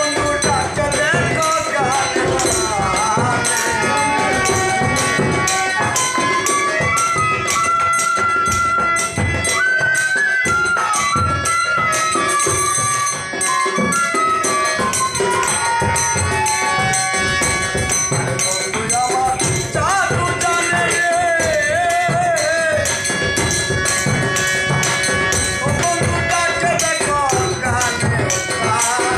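Instrumental interlude of a Bengali Baul folk song: a bamboo flute plays a gliding melody over sustained harmonium chords, while jingling hand percussion keeps a steady beat.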